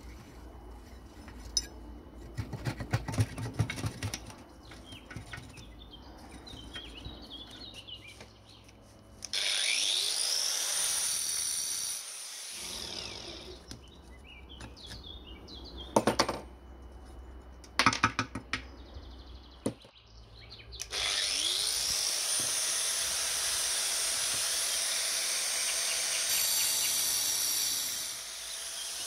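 Hand tools working on a rusted cast-iron stove: a wrench clinking and clicking on a corroded nut, then a few sharp metal-on-metal knocks as a steel rod is set against a leg bolt. Twice a loud, steady hiss cuts in, rising in pitch as it starts: the first lasts about three seconds, the second runs through most of the last third.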